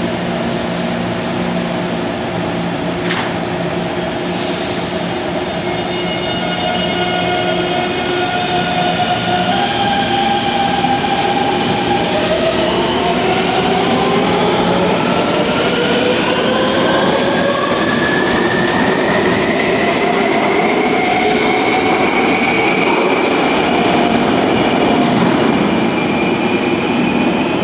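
Taipei Metro C321 electric train pulling out of an underground station. A steady hum at first, then from about twelve seconds in the motor whine climbs steadily in pitch as the train accelerates away, over the noise of wheels on rails.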